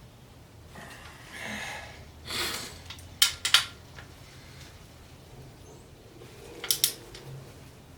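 Metal hand tools clinking against an engine block: two pairs of sharp clinks, about three seconds apart, amid softer scraping and rustling.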